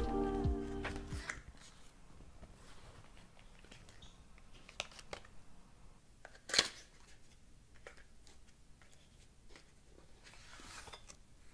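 Quiet handling of a small cardboard cosmetics box: faint clicks and rustles, one short sharp crackle about six and a half seconds in, and a brief soft scrape near the end as the top flap is pulled open. Background music fades out in the first second or so.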